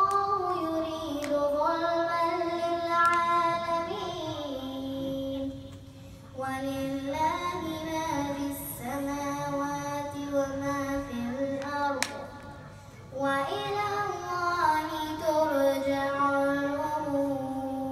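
An eight-year-old girl reciting the Quran in a melodic chant, holding long notes that glide between pitches, in three phrases with short breath pauses about five and a half and twelve seconds in.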